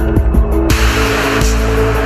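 Music from a fan edit: a steady beat over deep bass and held tones, with a hiss-like swell coming in about two-thirds of a second in.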